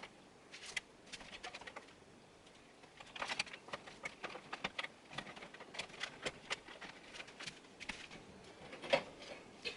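Faint, irregular clicks and rattles of a power supply cable and its plastic connector being worked into place inside a PC case.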